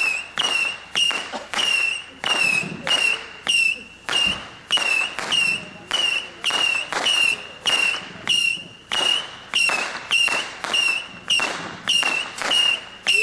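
A 100-shot Saturn missile battery firing its whistling missiles in steady succession, about two shots a second. Each shot is a sharp launch pop followed by a short whistle that fades before the next.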